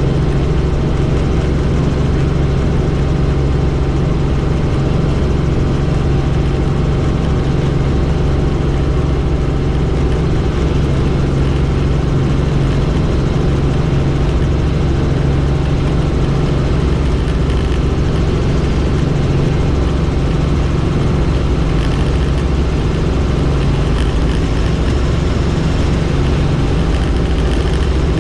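Helicopter's engine and rotor running steadily, a loud, even drone with a strong low hum.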